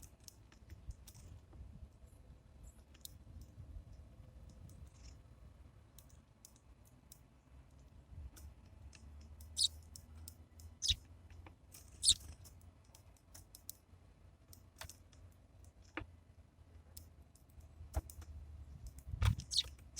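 Sparrows at a bird feeder: scattered light clicks and taps of beaks pecking seed and feet on the feeder, with a few short, high chirps about halfway through.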